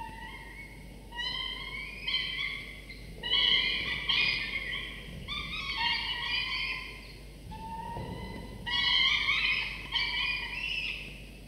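Peregrine falcon chicks giving a series of high, whining begging calls while being fed, some rising in pitch and overlapping one another, with a short lull a little past the middle.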